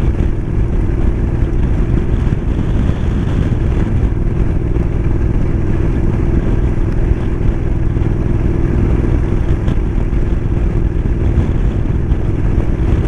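Motorcycle riding at a steady cruising speed: the engine running evenly with a constant drone, mixed with heavy wind and road noise, with no change in speed.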